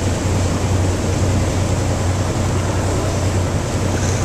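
Boat engine running steadily under way: a constant low drone with an even wash of noise over it.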